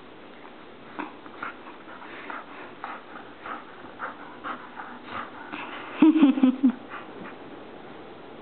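A dog chewing and tearing at a Razorback toy, with scattered small scratchy clicks and rustles. About six seconds in the dog gives a brief burst of loud, short vocal sounds.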